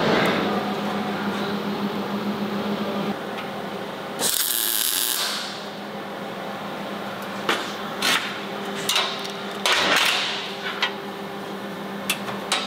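Steel strap being forced and clamped by hand around a curved steel frame piece: scattered sharp metal clinks and taps, a hiss lasting about a second about four seconds in, and a steady low hum underneath.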